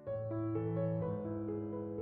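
Background music: a keyboard playing held notes and chords, with a new chord struck right at the start and the notes changing every half second or so.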